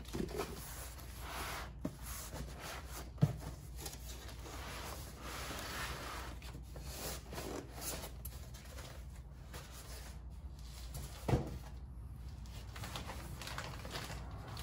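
Cardboard shipping box being opened and its packaging handled: irregular rustling and scraping, with two sharp knocks, one about three seconds in and another late on.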